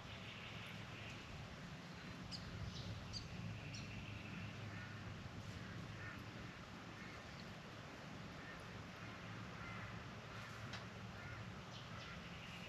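Spangled drongo calling: scattered short, harsh, metallic notes, a quick cluster about two to three seconds in and more spaced out later, over a steady low hum.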